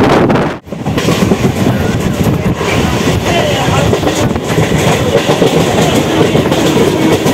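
Three-phase MEMU electric train running, heard from an open doorway: wheels clattering over the rails with rushing wind. The sound drops out briefly about half a second in, then carries on steadily.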